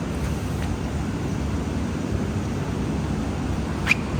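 Steady low rumble of factory background noise, with a single short sharp click near the end.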